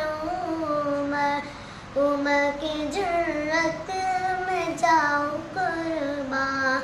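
A young girl singing a naat solo, drawing out long, wavering melismatic notes, with a brief pause for breath about one and a half seconds in.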